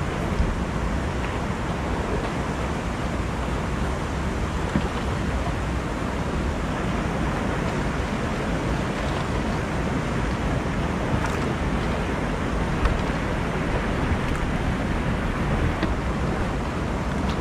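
Steady rush of wind and water noise, heaviest in the low end, with a few faint ticks.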